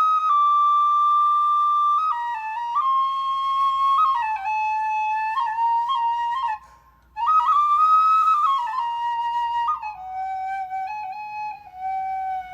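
A small flute playing a slow melodic phrase. It opens on a long held high note, then steps down through shorter notes. About seven seconds in there is a brief break for breath, followed by a rising phrase that falls back and settles on a lower note, repeated gently.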